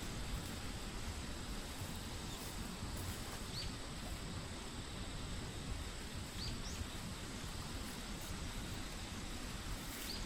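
Outdoor field ambience: a steady background noise with a thin, steady high tone, and a few short rising bird chirps scattered through it.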